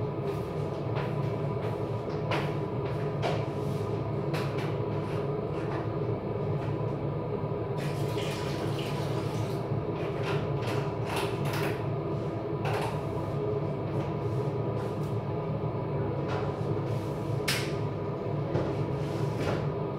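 Steady machine hum from a household appliance or fan, with scattered clicks and knocks of dishes and utensils being handled at a kitchen sink; a short rush of noise about eight seconds in.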